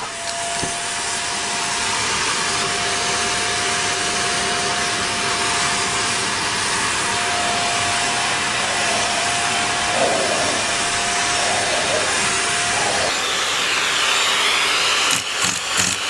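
Canister vacuum cleaner running steadily, a constant rushing with a high whine, its brush nozzle being run over a cat's fur. Near the end a series of irregular short knocks sounds over the noise.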